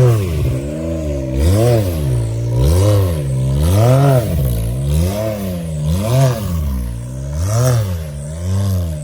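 Side-by-side UTV engine revved in repeated throttle blips, rising and falling about once a second, as the machine crawls up a rock obstacle, with some scraping and clatter.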